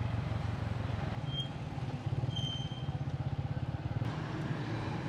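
A vehicle driving through city traffic: a steady, slightly pulsing low engine hum over road noise. Two short high-pitched tones sound about one and a half and two and a half seconds in.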